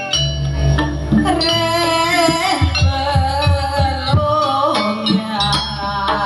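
Javanese jaranan gamelan ensemble playing with a singer's wavering vocal line from about a second in. Deep gong strokes ring out at the start and again near the end, and kendang hand-drum strokes fill the middle.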